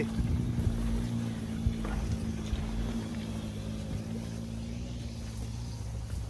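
Car engine running steadily, a low even hum that neither rises nor falls.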